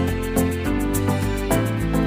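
Background music with a steady beat: a bass line and melody under regular light hi-hat ticks, about four a second.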